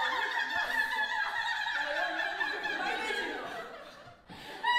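A woman's long, high-pitched laugh, held almost like a sung note, fading out after about three seconds, with other laughter around it.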